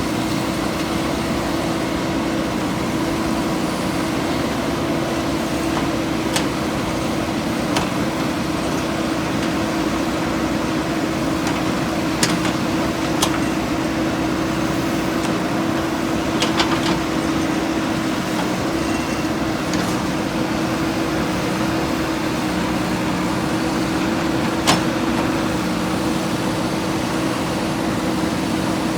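JCB 3DX backhoe loader's diesel engine running steadily at a constant speed, with a few short, sharp clanks.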